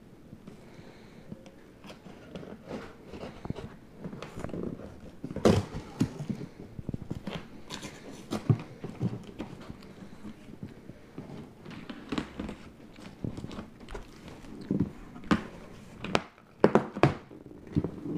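Cardboard shipping box being opened by hand: packing tape slit and pulled off and stiff cardboard flaps bent back, irregular crackling and rustling with several sharp louder crinkles and knocks.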